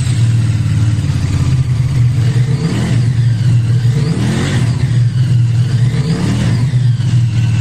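QJMotor Sai 550 motorcycle engine with a 270-degree crankshaft running steadily, freshly rebuilt with new crankshaft bearing shells to cure a noise when the throttle is closed.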